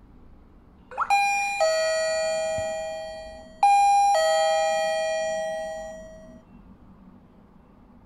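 Electronic two-tone "ding-dong" doorbell chime from a fingerprint smart door lock's peephole-camera unit, ringing twice about two and a half seconds apart, each chime dying away over about two seconds. A short rising chirp comes just before the first chime.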